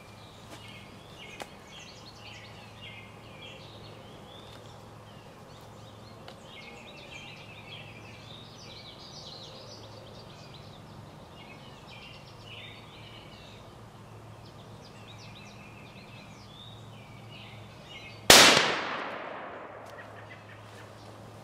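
.300 Winchester Short Magnum rifle firing a single shot about 18 seconds in: one very loud crack whose report dies away over about two seconds. Before it, birds chirp over a low steady hum.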